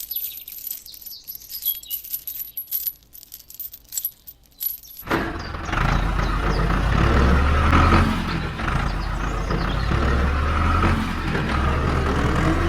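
Scattered light clicks and taps, then about five seconds in an abrupt switch to a steady motor-vehicle engine sound with a low hum.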